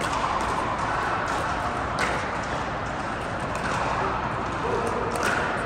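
Indoor pickleball hall ambience: steady background noise under a few sharp pops of paddles striking a plastic pickleball, one about two seconds in and another near the end.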